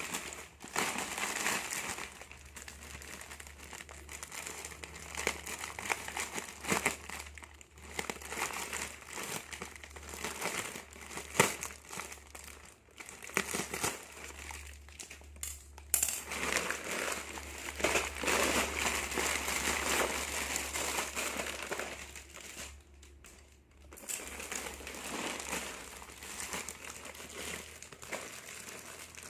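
Plastic snack packaging being handled and opened, an irregular crinkling and rustling with a few sharp crackles, the loudest about 11 and 16 seconds in.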